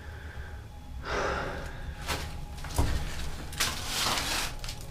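Rustling of old papers and debris being handled, in several short noisy bursts, the longest and loudest near the end, with a soft knock about three seconds in.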